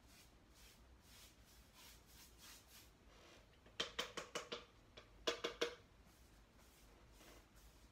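Two quick runs of sharp, ringing taps: about five in a row, then about a second later three more, over faint rustling.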